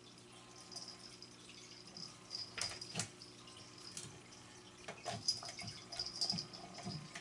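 Plastic ball toy, the "Wild Thing" cat toy, being swatted and batted about on a tile floor by a cat: scattered light clicks and taps, a cluster of them between about two and three seconds in and again from about five seconds in.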